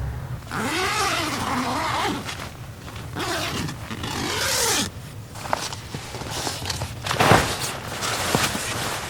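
A zipper pulled open or shut twice, each pull a rasp that rises and falls in pitch as it speeds up and slows down, followed by scattered clicks and knocks of gear being handled.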